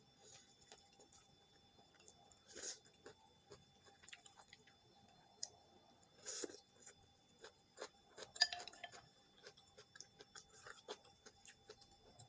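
A person eating quietly: soft chewing with scattered light clicks of utensils against a dish, and a few louder brief bursts.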